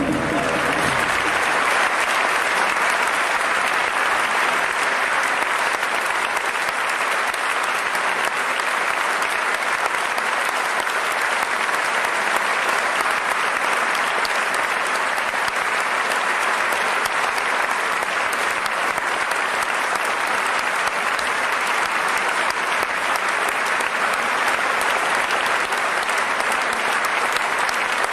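Audience applauding steadily, a dense continuous clapping that holds at the same level throughout. A low note of the preceding music dies away in the first second or so.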